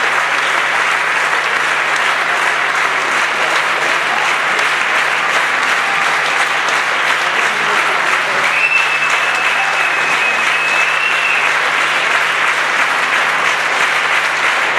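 Audience applauding steadily for the whole time, with a high steady tone held for about three seconds near the middle.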